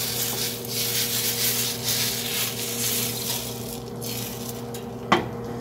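Baghrir batter hissing and scraping as it is poured from a ladle into a hot nonstick frying pan and spread with the ladle. The hiss eases after about four seconds, and a single sharp tap of metal on the pan comes near the end.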